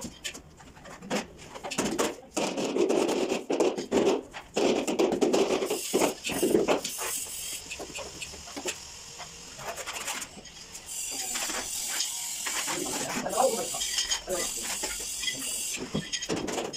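Steel tiling trowel clinking and scraping against a ceramic wall tile as tile adhesive is scooped and spread on its back, with tiles knocked into place. Many sharp clicks and knocks, then a steady scraping for several seconds in the second half.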